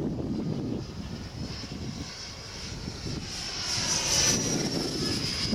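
Radio-controlled F-2 model jet's 90 mm electric ducted fan whining in flight. The high whine swells and rises a little in pitch about four seconds in, then falls back slightly as the model passes.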